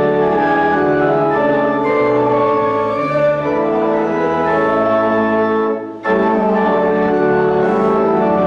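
Church organ playing sustained chords in a closing postlude. There is a brief break about six seconds in before the next chord.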